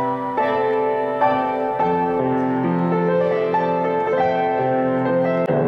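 Piano playing a slow, gentle piece of held chords and melody notes, the harmony changing every second or so.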